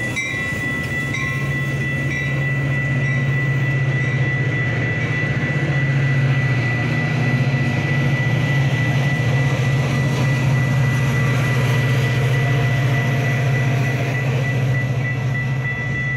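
Metra bilevel commuter train rolling past over a grade crossing, a steady low rumble of the cars on the rails, with the crossing's warning bell ringing on a high tone. The rumble eases near the end as the last car clears.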